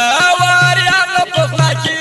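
Instrumental passage of a ghazal: tabla keeping a steady beat under a stepped melodic instrument line.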